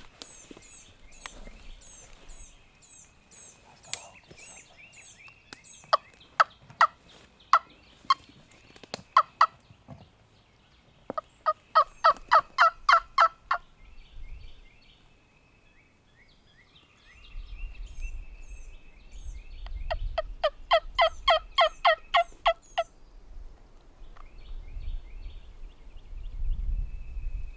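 Hen turkey yelps made on a turkey call: three loud runs of short, falling yelps. The first run is uneven, and the next two are even at about four notes a second. This is the hunter calling to a group of jakes to draw them in, with faint songbird chirps in the background.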